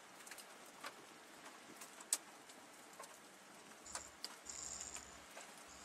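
Scattered faint ticks of pea-sized hail striking a storm chaser's vehicle, irregular and a few per second. A low hum comes and goes from about four seconds in.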